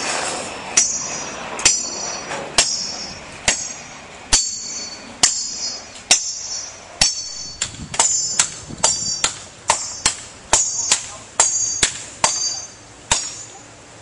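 Machete chopping into a tree limb: repeated sharp strokes, each with a ringing metallic tone from the blade, about one a second at first and quickening to about two a second from about eight seconds in.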